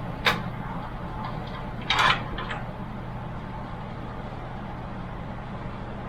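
Sharp metal-and-plastic clicks of hardware being fitted into a PC case: one short click a moment in, then a louder clack about two seconds in with a small tick just after, over a low steady hum.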